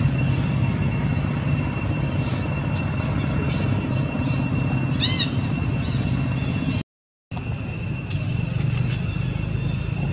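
Steady low rumble with a constant high-pitched whine. About halfway through comes one short squeaky call, from a baby long-tailed macaque. A little later the sound cuts out for about half a second.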